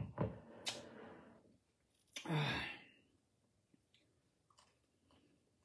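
A woman breathing out audibly, then letting out a breathy, voiced sigh about two seconds in that falls in pitch, after a sip of drink. Faint small clicks and rustles follow as she picks at food with her fingers.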